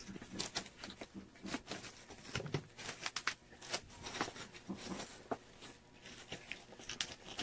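Bubble wrap crinkling and crackling in quick, irregular clicks as hands pull and tear it open.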